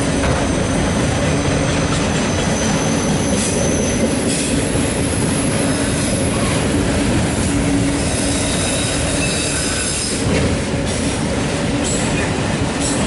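CSX autorack freight train rolling past: a loud, steady rumble of steel wheels on the rails, with thin high wheel squeals that come and go and scattered clicks from the wheels over the track.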